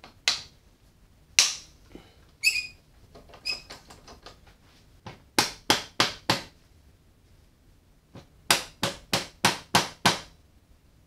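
A series of sharp knocks and clicks. A few scattered ones come first, two of them with a short metallic ring. Then come two quick runs, four knocks and then six, at about three a second.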